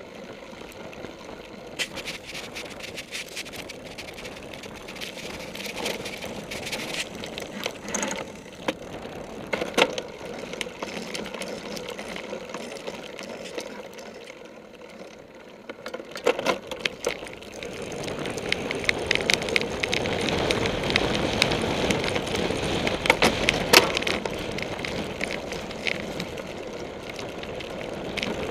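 Clatter of a cyclocross bike riding over bumpy grass, heard through a camera mounted on the bike: a steady rattling rush with many sharp knocks. It gets louder and rougher about two-thirds of the way through.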